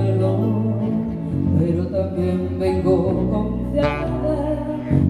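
Live band playing a slow ballad: electric bass and acoustic guitar under a woman's singing voice, with the bass notes changing every second or so.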